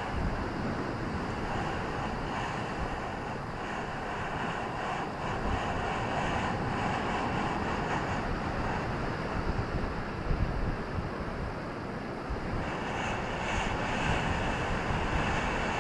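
Ocean surf rushing steadily, swelling a little in the middle and again near the end, with a low irregular rumble underneath.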